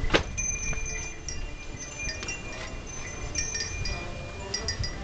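Small metal chimes ringing, several clear high tones struck at different moments that ring on and overlap, after a single sharp click at the start.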